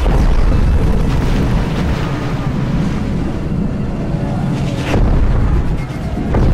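Loud, deep rumbling booms from added documentary sound effects. The rumble starts suddenly and holds, then surges again about five seconds in and once more near the end.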